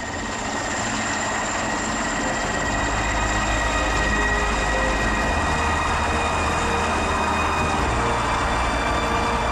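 Mil Mi-8-type twin-turbine helicopter lifting off: steady rotor thudding and turbine noise with a high whine, growing louder over the first few seconds as it rises, then holding steady.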